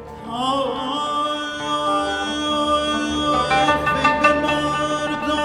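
Live Persian music: a sustained melodic line slides upward and then holds long notes, with plucked strings joining in about three and a half seconds in.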